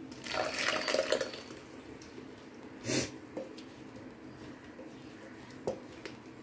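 Thick ground carrot and green chilli paste sloshing as it is poured from a steel mixer-grinder jar into a steel mesh strainer, then faint wet sounds as it is worked through the mesh by hand. A sharp knock about three seconds in and a click near the end.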